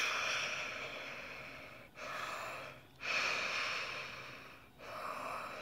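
A person huffing out four long, breathy exhales in a row, each fading away, voicing the strain of a toy straining to move.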